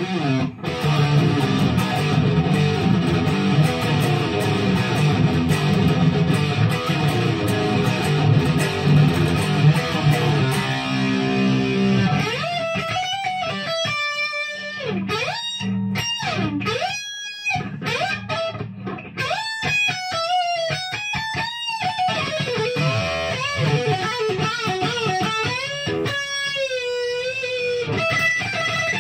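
Gibson Les Paul Standard '50s electric guitar played with a distorted tone. It starts with dense, heavy rhythm riffing, then from about twelve seconds in switches to a lead of single notes with string bends and vibrato.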